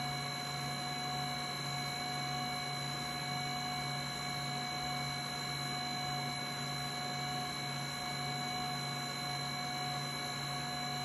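HumminGuru ultrasonic record cleaner in its drying stage, its fan and record-turning motor running: a steady whirring hum with several constant whining tones over an airy hiss.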